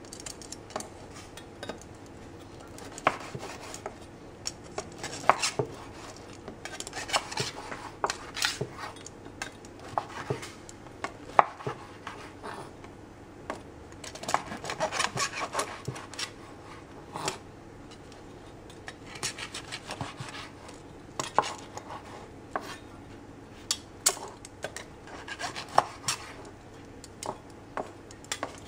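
Large kitchen knife chopping and sawing through crispy grilled pork rashers on a wooden chopping board: irregular knocks of the blade on the board, with short rasping cuts and bursts of quick chops.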